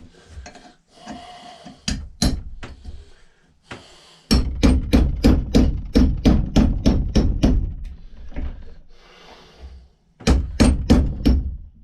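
Hammer blows on a rusted-in piece stuck in an old axe head: two single strikes, then a quick run of blows at about four a second, a pause, and another quick run near the end.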